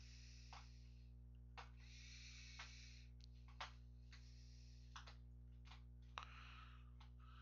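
Near silence: a steady low electrical hum on the microphone, with scattered single computer keyboard and mouse clicks and a few soft breaths.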